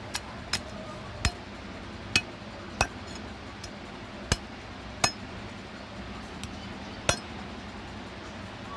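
A steel cleaver chopping goat head meat on a wooden log chopping block: about eight sharp chops at an uneven pace, with a longer pause before the last one.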